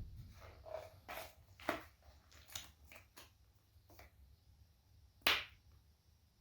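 A scatter of short, sharp clicks and knocks, about eight in all, the loudest about five seconds in: small resin and hardener bottles and mixing cups being handled and set down on a workbench.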